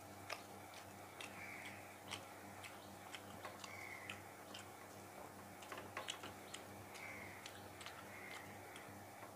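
Faint, irregular clicks and ticks of a hand mixing and scooping rice on a steel plate and of eating it, with a steady low hum.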